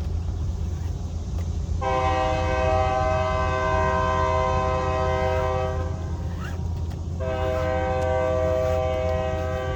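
Train horn sounding two long blasts, a chord of several steady tones. The first starts about two seconds in and lasts about four seconds; the second starts about seven seconds in and is still sounding at the end. A steady low rumble runs underneath.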